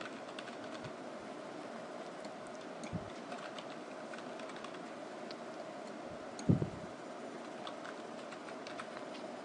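Computer keyboard typing: soft, scattered key clicks over a steady background hum. A dull low thump about six and a half seconds in is the loudest sound.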